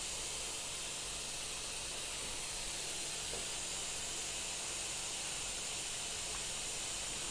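Steady, featureless hiss of the soundtrack's background noise, with no separate events; the surgical incision itself makes no audible sound.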